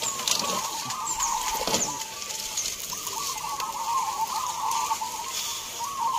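Many caged zebra doves (perkutut) cooing at once, their overlapping rhythmic coos forming a continuous chorus that pauses briefly about two seconds in. A few brief high chirps sound over it.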